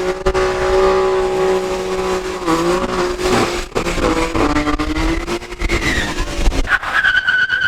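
A car engine held at high, steady revs, dipping briefly and then wavering lower before climbing again. A high, steady squeal comes in near the end.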